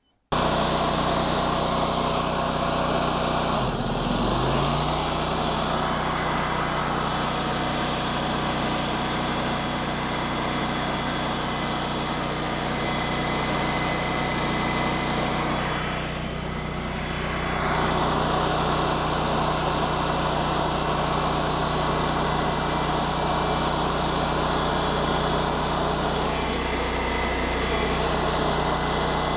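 A machine engine running steadily, its pitch dipping briefly about four seconds in and then recovering, with a short change in the sound about two-thirds of the way through.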